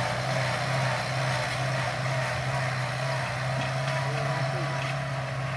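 Kubota M7040SU tractor's diesel engine running steadily under load, pulling a disc harrow through dry soil.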